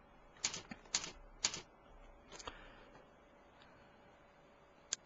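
Computer mouse clicking: a few sharp clicks about half a second apart in the first half, one more after a short pause, and a last one near the end.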